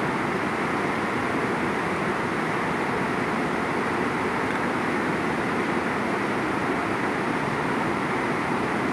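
Steady, even rush of a swollen, fast-flowing river.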